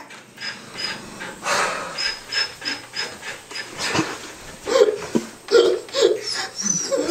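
A person sobbing in short, breathy gasps and whimpers, with a few short voiced sobs near the end.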